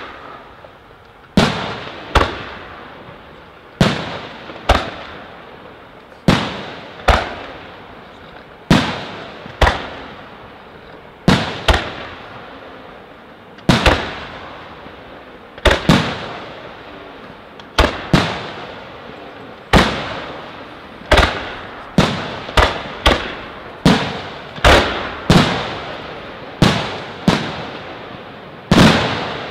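Aerial firework shells bursting one after another, each bang trailing off in a long echo. At first they come in pairs about two seconds apart; from about two-thirds of the way through the bangs crowd closer together, several a second.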